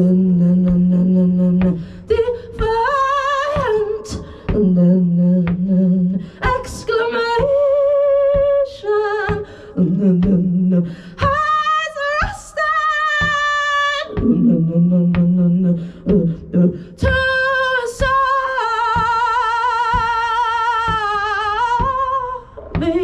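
A woman singing wordlessly and improvising, close into a handheld microphone. Low held tones alternate with higher sung phrases, and near the end comes a long high passage with a wide vibrato.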